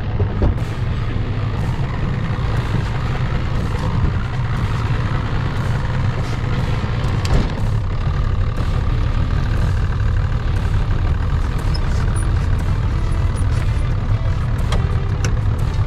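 Boat's outboard motor running steadily at low speed, a continuous low rumble with a few faint clicks over it.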